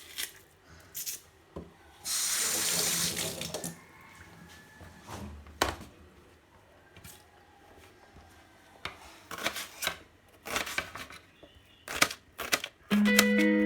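Water tap running for about a second and a half, about two seconds in, with scattered knocks and clicks of kitchen handling around it. Music begins near the end.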